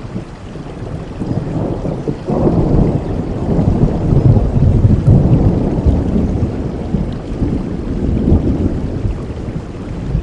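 Thunder rumbling over steady heavy rain: a long, deep roll builds about two seconds in, is loudest around the middle, then slowly fades while the rain goes on.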